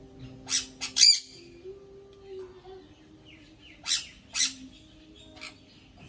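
African grey parrot giving short, sharp calls: three close together about half a second to a second in, then two just before and after four seconds and a fainter one at about five and a half seconds.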